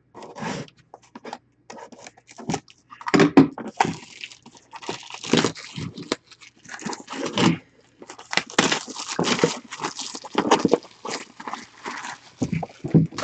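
Plastic shrink wrap being torn and peeled off a sealed trading-card box: irregular crinkling and tearing, in bursts with short pauses.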